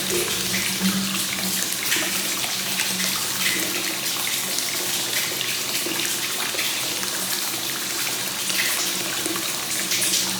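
Free-flowing hot spring source water (kakenagashi) pouring steadily into a bath, a continuous splashing rush of water.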